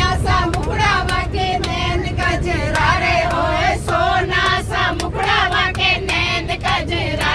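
A group of women singing a Hindi devotional folk song (bhajan) together, with hand claps keeping time, inside a bus with a steady low rumble underneath.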